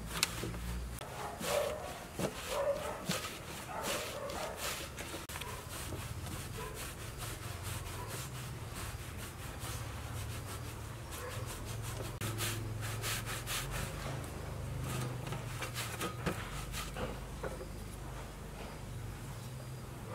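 Hands kneading dumpling dough on a metal tray: repeated rubbing, pressing strokes with clusters of soft taps and clicks, as the dough is worked until smooth.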